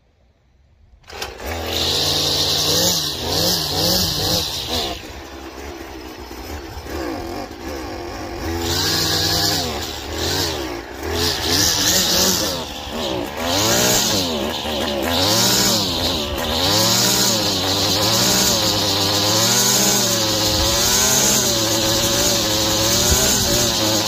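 Gas string trimmer's small engine catching about a second in and then running, its speed rising and falling unevenly. It is not running well.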